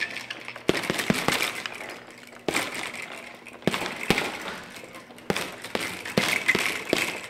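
Boxing gloves hitting a punching bag: sharp, irregular smacks, some in quick pairs, with short pauses between flurries.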